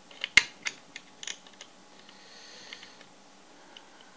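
Sharp clicks and light knocks of the parts of a Leon Paul-style upright fencing reel being handled during reassembly, a quick run in the first second and a half with the loudest about half a second in, then a few scattered ticks.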